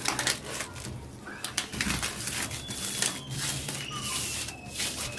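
Hands handling drone packaging: a run of sharp clicks, taps and rustles. A thin high whistle is held through the second half.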